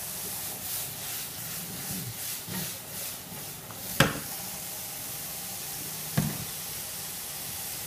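Food sizzling in frying pans with a steady hiss, while metal tongs stir and scrape in a pan. A sharp metal clack comes about four seconds in, the loudest sound, and a second, lighter one about two seconds later.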